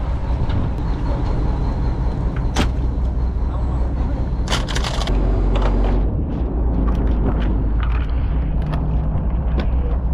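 Fishing boat's engine running steadily as a low rumble, with scattered knocks and clicks over it.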